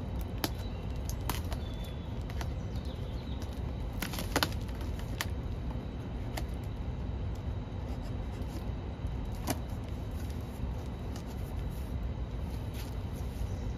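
Cardboard box and packaging being opened and handled by hand: scattered short clicks, taps and crinkles, over a low steady rumble.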